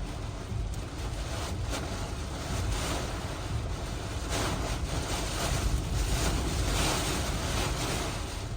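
Hurricane-force wind blowing in strong gusts and buffeting the microphone with a low rumble, swelling loudest a little past halfway through.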